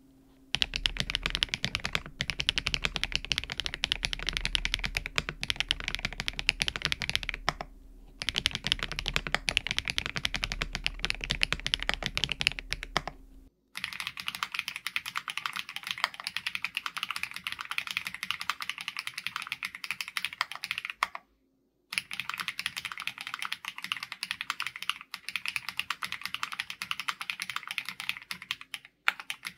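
Fast, continuous typing on a QSENN DT35 87 mechanical keyboard fitted with factory-lubed HMX Violet linear switches, with a PC plate, full foam and PBT keycaps. The typing stops for a moment about halfway in and again about three quarters of the way in. After the first break it sounds thinner, with much less low thump.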